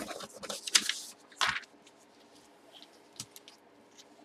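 Hands handling a cardboard box and the paper sheet on its lid: a flurry of brushing and scraping in the first second and a half, then a few faint taps.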